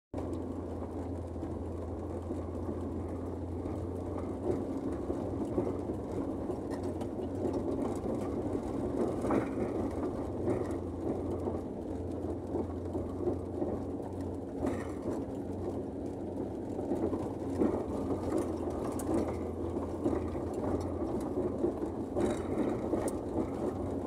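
Volkswagen Kombi van's engine running steadily under load as it climbs a dirt road, with tyre and body rattle noise, heard from inside the cab.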